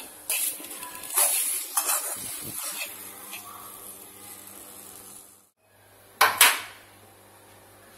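Spatula scraping and stirring grated coconut as it dry-roasts in a metal kadai, a few strokes in the first three seconds over a faint sizzle. A little after the middle come two loud metal clanks of the pan against the gas burner's grate.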